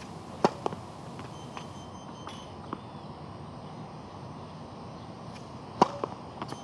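Tennis racket striking the ball on two serves: a sharp pop about half a second in and another near the end, each followed by one or two fainter knocks.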